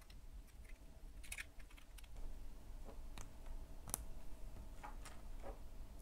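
Light clicks and taps of 3D-printed PLA cube pieces being handled and fitted together by hand: a handful of separate clicks, the sharpest about four seconds in.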